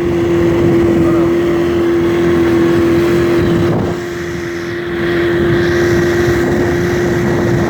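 Small boat's motor running at a steady speed, one constant tone over a rushing haze of wind and water noise; it eases off briefly about four seconds in.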